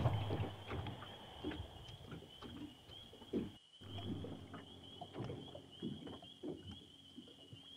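Small waves lapping and knocking against a fishing boat's hull, over a steady background chorus of short, high, rising chirps repeating a few times a second. The sound cuts out briefly about three and a half seconds in.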